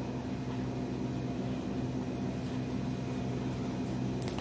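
Steady low machine hum with a faint hiss, unchanging throughout.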